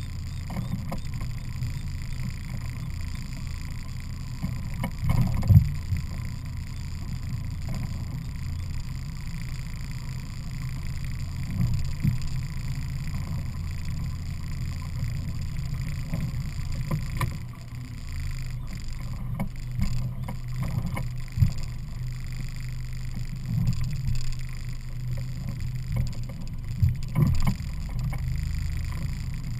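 Evinrude 50 hp E-TEC two-stroke outboard motor running steadily, a low drone. Several short thumps sound over it, the loudest about five seconds in.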